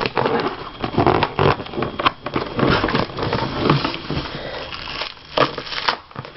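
Cardboard shipping box being worked open by hand: irregular crackling, rustling and small knocks.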